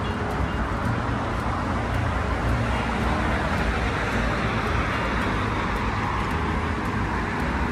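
Road traffic noise: a steady rumble of passing vehicles, with one vehicle swelling louder through the middle and then fading.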